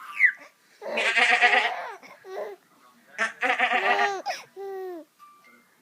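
A man imitating a sheep, with two long wavering "baaa" bleats about a second and three and a half seconds in. A baby's short laughs and squeals come around them.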